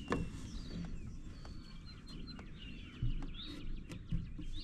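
Small birds chirping throughout, with a sharp wooden knock at the start and two more near the end as a 2x6 fascia board is knocked into place against the rafter ends.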